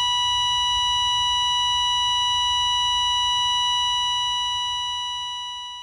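Heart monitor flatline: one continuous steady beep with ringing overtones, fading toward the end. It is the sign that the heart has stopped.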